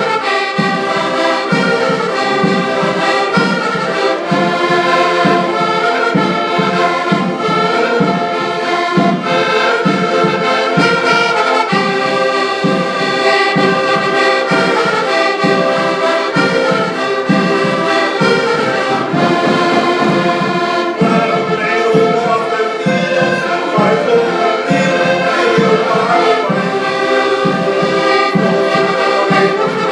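A band playing music led by brass instruments, over a steady beat.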